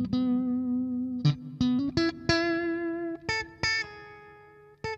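Electric guitar on its neck-and-middle pickup setting, played through a Digitech RP55 multi-effects processor with a clean tone. It picks a phrase of single notes one after another, each ringing and fading. A little past three seconds in, the last note is left to ring out and fade, and fresh notes are picked right at the end.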